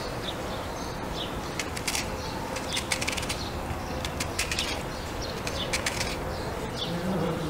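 Kitchen knife slicing through a raw red onion held in the hand: crisp cutting clicks in short quick clusters. Birds chirp repeatedly in the background.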